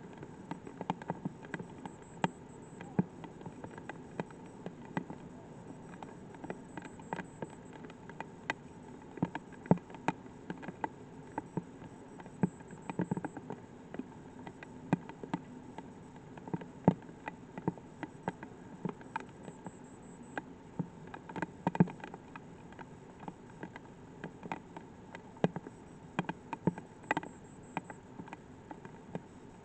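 Light rain, with individual drops tapping irregularly and close by, several a second and of uneven loudness, over a faint steady hiss.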